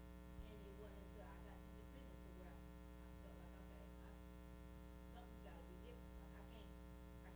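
Near silence: a steady electrical hum, with faint, far-off speech.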